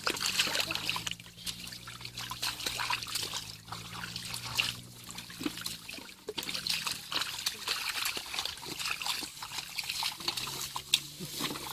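Water trickling and splashing in many small irregular spatters, over a low steady hum.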